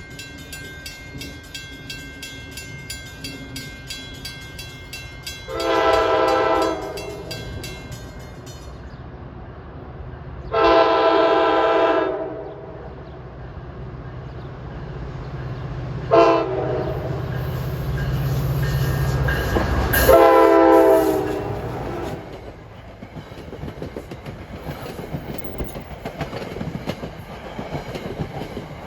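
NJ Transit PL42AC diesel locomotive sounding its unrestricted Nathan K5LA five-chime air horn in the grade-crossing pattern: long, long, short, long. The locomotive's engine rumble builds under the horn and peaks with the last blast, then the train's cars run past.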